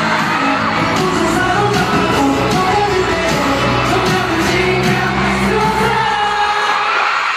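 Pop music with a sung vocal over a steady bass line; the bass drops out near the end.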